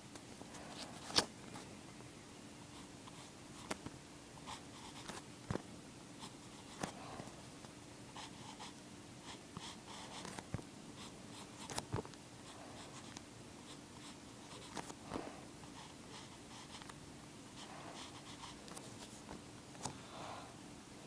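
Pencil sketching on paper: faint scratching strokes, broken by occasional sharp clicks, over a faint steady hum.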